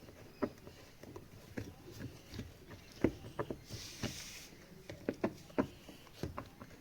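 Irregular light clicks and knocks of parts and tools being handled, with a short hiss a little under four seconds in.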